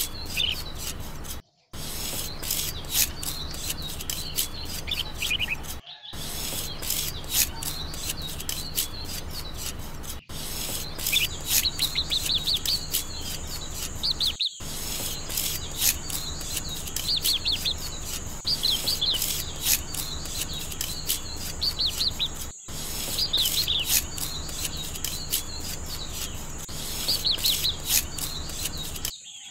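Small trowel scraping and smoothing wet cement, a run of short rubbing strokes broken by a few brief silent gaps, with birds chirping in the background.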